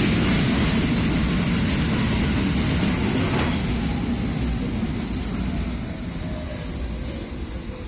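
An R68 subway train braking into a station: the wheels rumble on the rails and fade as it slows. From about four seconds in there is a thin, high, steady squeal, and a faint whine falls in pitch as it comes toward a stop.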